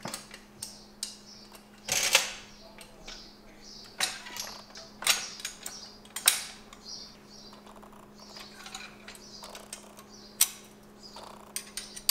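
Irregular clicks, clacks and knocks as a compound bow is handled in a bow press, with its metal press parts and fittings being adjusted. A steady faint hum runs underneath.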